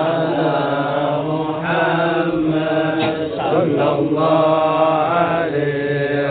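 Group of men chanting Islamic sholawat in praise of the Prophet together, unaccompanied, in long held notes that bend slowly in pitch.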